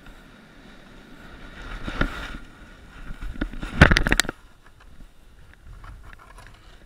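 A snowboard scraping over packed snow, building up and then ending in a fall: a burst of loud knocks and thuds about four seconds in as the rider and board tumble into the snow, then much quieter.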